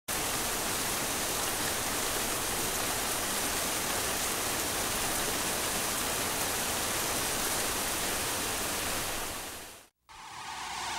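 Steady rain, an even hiss of falling rain, that fades out near the end, followed by a moment of silence.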